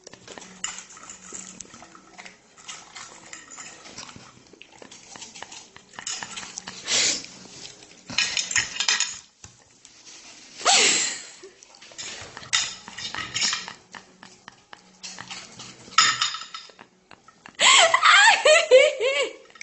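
Bursts of clattering and clinking, like dishware or metal being knocked about, with a short wavering pitched cry near the end.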